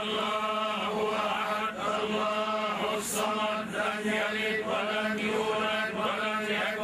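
A man chanting an Arabic religious recitation in long, wavering melodic phrases, over a steady low hum.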